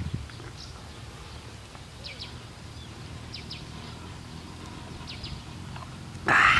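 Faint, scattered bird chirps over a steady low outdoor rumble. Near the end comes a short, loud burst of breathy noise.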